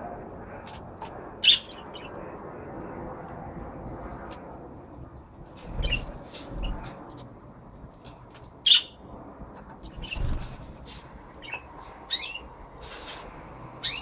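Budgerigars giving short, sharp chirps and squawks every few seconds, with a few dull thumps in between over a steady low background noise.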